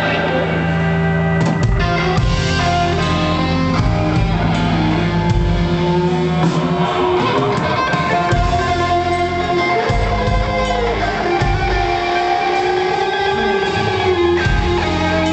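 Live rock band playing a song, with guitar to the fore over a steady bass line.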